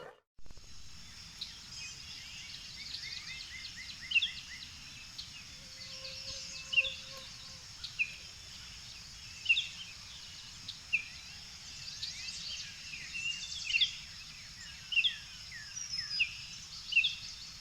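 Birds chirping outdoors: many short, sharp calls falling in pitch, scattered irregularly over a steady high hiss.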